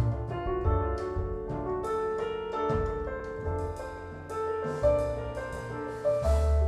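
Piano-led music with low bass notes, played back through a push-pull tube amplifier and open-baffle loudspeakers.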